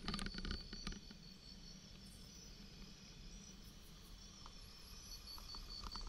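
Bicycle rattling and clicking over a bumpy dirt track, loudest in the first second, over a low rumble of riding. An insect trills steadily in a high, pulsing tone, fading out midway and returning near the end.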